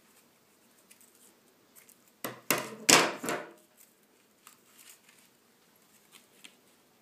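A quick run of several sharp knocks and clatter, starting about two seconds in and lasting a little over a second. Only faint light taps come before and after.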